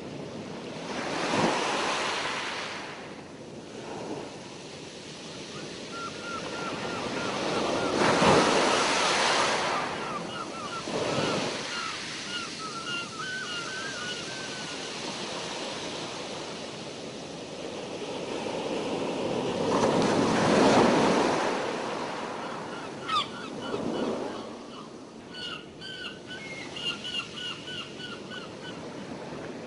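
Sea waves washing, with wind buffeting the microphone, and three louder surges of rushing water. Between them come faint runs of rapid, short, high chirps.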